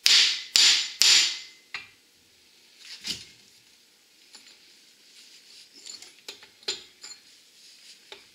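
Hammer tapping a new U-joint bearing cap into the yoke of a Ford F-350 Super Duty front axle shaft, driving it in far enough for the C-clip to go on. Three sharp metal strikes come about half a second apart, then a lighter one, then another about three seconds in, followed by a few light clinks of metal parts being handled.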